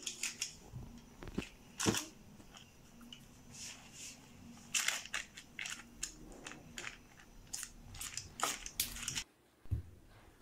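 Metal spoon spreading runny chocolate sponge batter over parchment paper in a baking tray: irregular wet scrapes and light clicks of the spoon. The sound drops out briefly near the end, followed by a single knock.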